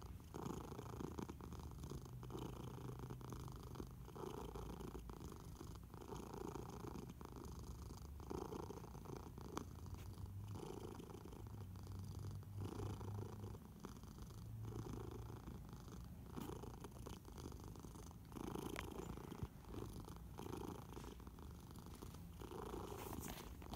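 Domestic cat purring close up, rising and falling with each breath about once every two seconds.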